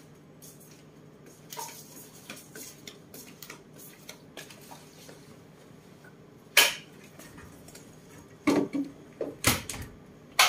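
Scattered light clicks and a few sharp knocks: one loud knock about six and a half seconds in, then a quick cluster of knocks near the end, from animals moving about on a wooden bed.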